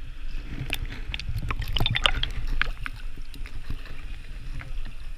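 Water splashing and sloshing around people swimming in a pool, with irregular splashes busiest about two seconds in, over a low rumble.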